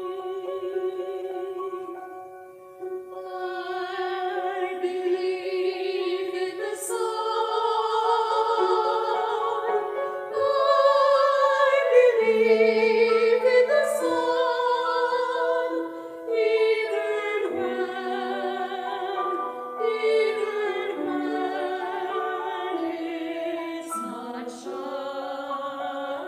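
Offertory music: a solo classical-style voice singing long, held notes with vibrato over sustained accompaniment, with a short lull about two seconds in.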